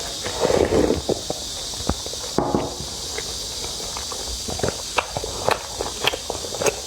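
A person chewing and eating: irregular wet mouth clicks and smacks, with a few fuller chewing sounds, over a steady hiss.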